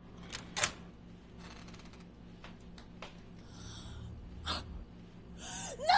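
A couple of sharp clicks about half a second in, a low rumble, then a person's gasping breath near the end.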